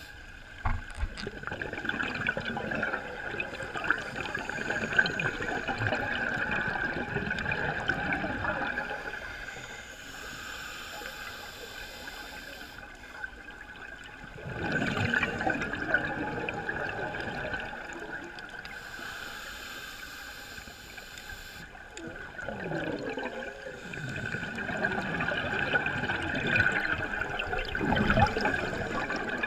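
Scuba diver breathing through a regulator underwater: three long bursts of exhaled bubbles gurgling past the microphone, with quieter pauses between them.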